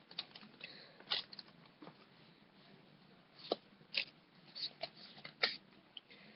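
Faint, scattered crinkles and clicks of a Pokémon booster pack and its trading cards being handled, with a handful of sharper crackles in the second half.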